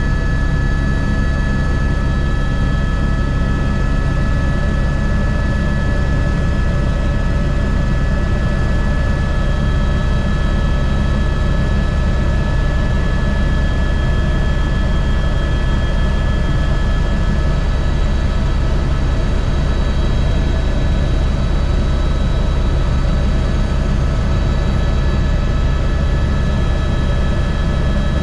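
Airbus H125 helicopter running steadily: its rotor and single turboshaft engine give a heavy low drone with steady high whine tones above it.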